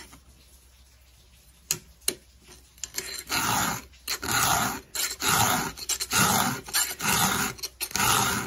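A 3/16-inch round file rasping through the gullet of a chainsaw chain's cutter. After a quiet start, six steady push strokes come about once a second.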